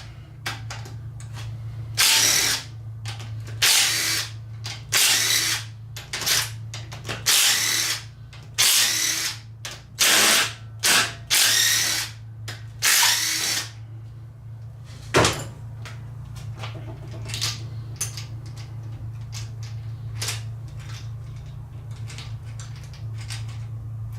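Cordless DeWalt drill spinning out the 8 mm rocker arm bolts on an LS4 V8's cylinder head, in about eight short runs of under a second each. A sharp click about 15 seconds in, then faint ticks, over a steady low hum.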